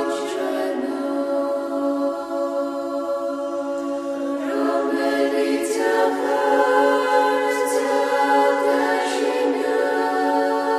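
Unaccompanied choir singing slow, held chords that shift every second or two.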